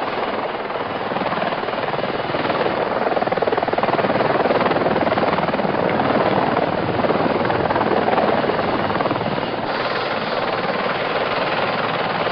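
CH-53 heavy transport helicopter's rotors and turbines making a dense, steady rush of noise as it flies low. Near the end the sound changes abruptly and turns brighter.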